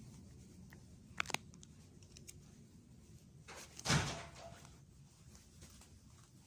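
Two quick sharp clicks about a second in, then a dull thump around four seconds in that fades over a fraction of a second, over quiet room tone.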